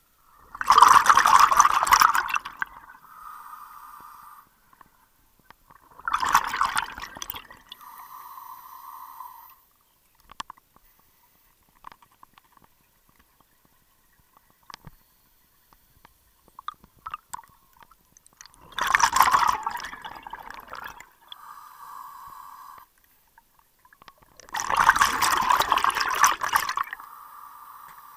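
Scuba diver breathing underwater through a regulator: four loud gushes of exhaled bubbles, each followed by a quieter hiss, with long pauses between breaths.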